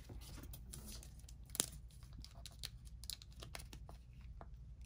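Trading card being slid into a plastic card sleeve: faint crinkling and rustling of the thin plastic, with a sharper tick a little over a second and a half in.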